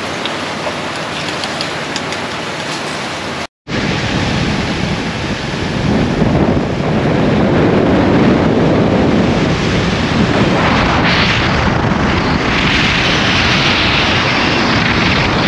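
Heavy wind rushing over the microphone of a camera riding on a moving motorcycle, a steady roar that grows louder from about six seconds in.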